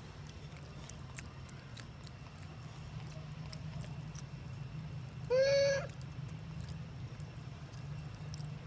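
A macaque gives one short, high call of about half a second, about five seconds in, over a steady low hum.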